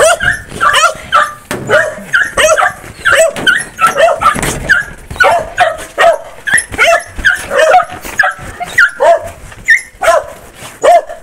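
Dogs yipping and barking excitedly in a quick, irregular run of short, high yelps, about two a second, as they jump up waiting to be fed.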